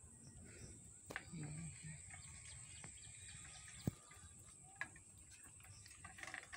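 Faint outdoor ambience: scattered bird chirps over a steady high-pitched tone, with a few sharp clicks, the loudest about four seconds in.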